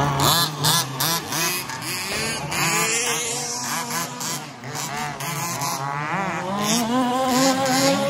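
Several electric 2WD RC buggies racing, their motors whining in quick rising and falling sweeps of pitch as they accelerate and brake around the corners.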